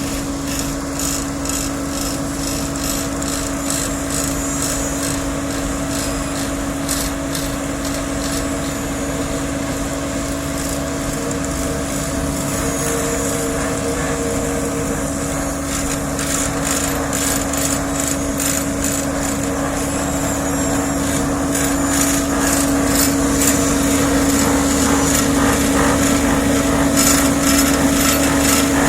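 Asphalt paver running at work: a steady engine hum with a constant whine under busy, irregular rattling and scraping. It grows louder over the last several seconds.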